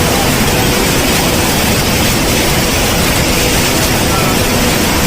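Steady, loud rush of water pouring over the Hogenakkal falls on the Cauvery River.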